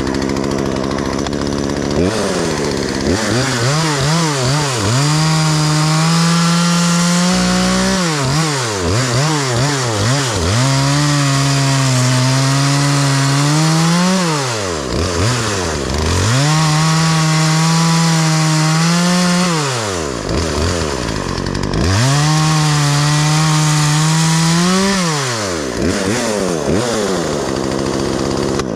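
Craftsman 36cc two-stroke chainsaw, built by Poulan, revved up to full throttle and held for a few seconds at a time, then let fall back toward idle, about four times with a couple of shorter blips between. It is being run up to check that it no longer bogs down after being made to run correctly.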